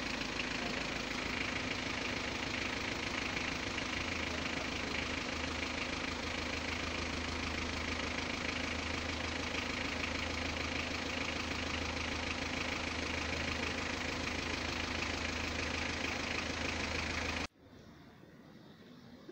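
Steady street noise with a low engine hum, like a vehicle idling, joining about four seconds in; the sound cuts off suddenly near the end, leaving only a faint hush.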